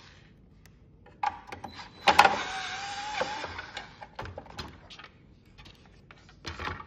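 A sharp click about two seconds in, then a small electric motor whirring with a steady whine for about a second, among light clicks and taps of tools and plastic housing parts being handled.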